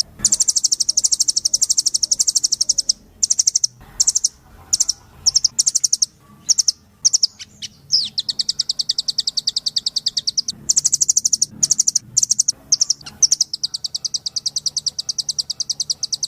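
Nuthatch (rambatan doraemon) calling in high, rapid rattling trills of fast repeated notes. Long runs break up into short bursts in the middle, with one quick downward slurred note about halfway through, before another long trill.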